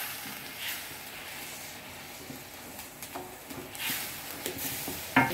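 Quiet sizzling of food frying in oil in a steel wok on a gas burner, with a few short clicks and scrapes from a wooden spatula stirring it.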